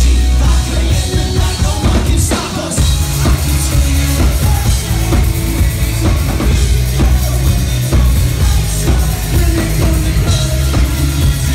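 Live rock band playing loud: electric bass, electric guitar and a drum kit with regular beats, heard from the crowd in the venue. The bass line changes about three seconds in.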